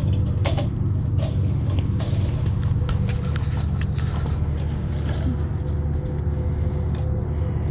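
A steady low mechanical hum with a faint steady tone, and light scattered clinks from a wire rabbit cage and feeder being handled.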